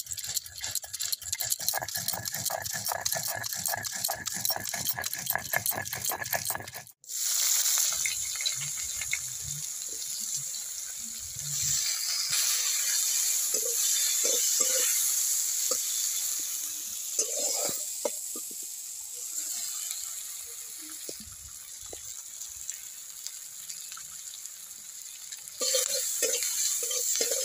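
For about the first seven seconds, quick rhythmic scraping of stone on a grinding slab as spice paste is ground. Then sliced onions sizzle as they fry in oil in a metal wok, with a spatula now and then scraping and knocking as it stirs.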